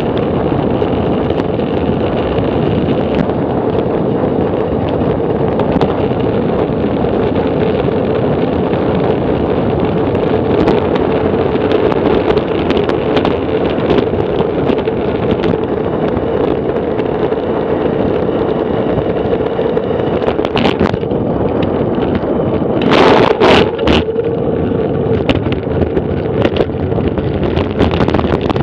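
Steady wind rushing over the camera microphone, mixed with tyre noise from a road bike descending fast. A few sharp knocks come about three quarters of the way through.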